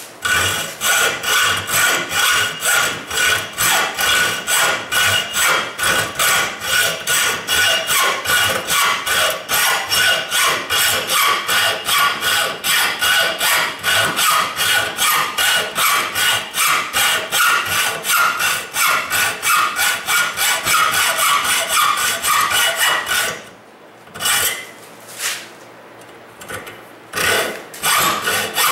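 Hacksaw blade cutting by hand into a 2-inch metal pipe nipple, rasping metal on metal in quick back-and-forth strokes about three a second, as the teeth of a well drill bit are cut. The sawing stops about 23 seconds in, with a couple of lone strokes, and starts again near the end.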